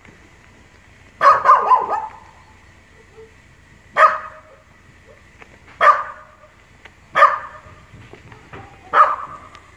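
Small shaggy dog barking: a quick run of several barks about a second in, then single barks every second and a half to two seconds.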